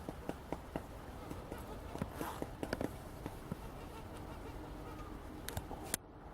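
Woodpecker pecking at wood while foraging: irregular light taps, with a quick cluster a little after two seconds in and one sharp knock near the end.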